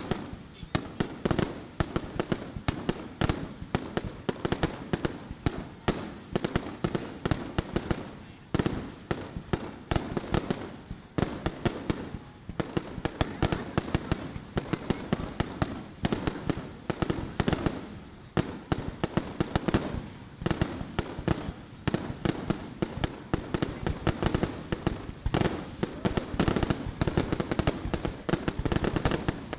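Aerial fireworks exploding in a dense, unbroken barrage of sharp bangs, several a second and overlapping.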